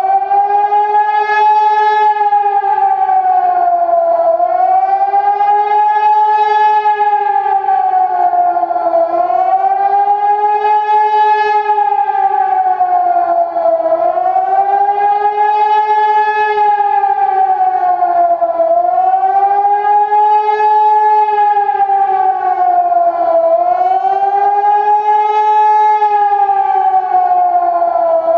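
Hörmann ECN 2400 electronic high-power siren sounding a loud wailing tone that rises and falls in smooth, shallow swells, about one every five seconds. This undulating wail is the German public-warning signal for acute danger to the population.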